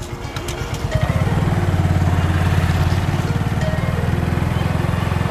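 Motorcycle engine running close by, a steady, rapid low pulsing that comes up about a second in and holds steady.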